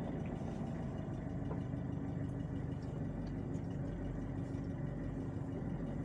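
A vehicle engine running steadily at low revs, a constant low hum that neither rises nor falls.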